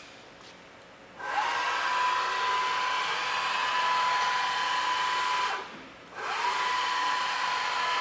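Bridgeport V2XT CNC milling machine spindle motor started up, running at a steady high whine, stopped and winding down, then restarted under a second later. Each start is a short rising whine that settles on one steady pitch.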